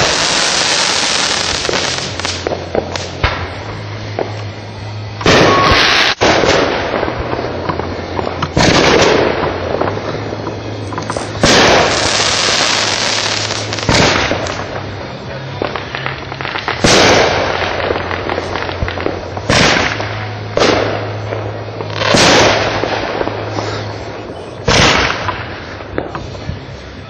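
Consumer firework cakes going off: loud aerial bursts about every two to three seconds, nine or so in all, each trailing off in a crackle.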